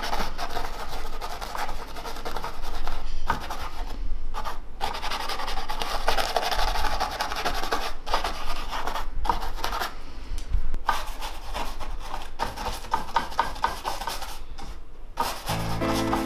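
A paintbrush rubbing across a painting's surface in a series of strokes of varying length, with short breaks between them. Piano-like music comes in near the end.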